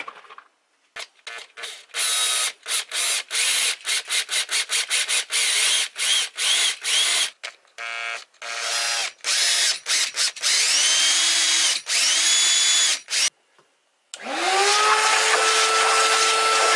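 Cordless drill boring new holes into an aluminium motor mount in many short trigger bursts, the motor spinning up and stopping again and again. About fourteen seconds in a vacuum cleaner starts up, its pitch rising and then holding steady, sucking up the metal shavings.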